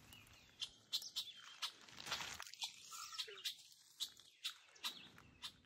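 Faint outdoor meadow ambience with scattered short, high chirps and ticks, a few each second.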